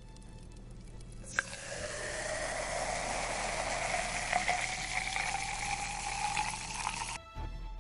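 An edited-in riser sound effect: a hissing build-up with tones that climb slowly in pitch and grow louder. It starts with a click about a second and a half in and cuts off suddenly near the end.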